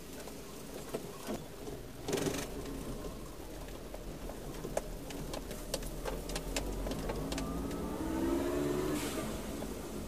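Car engine heard from inside the cabin, the car rolling slowly over a railway level crossing: a burst of knocking about two seconds in as the tyres cross the rails, then scattered clicks. Near the end the engine pitch rises as the car accelerates.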